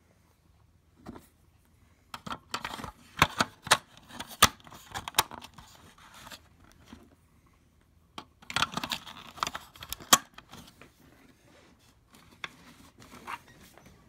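Sharp plastic clicks and scrapes of batteries being fitted into the battery compartment of a smoke and carbon monoxide alarm. They come in two bursts of handling, with a few fainter clicks near the end.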